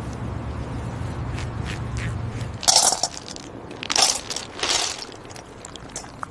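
A low steady hum for the first couple of seconds, then three short crunching noises about a second apart.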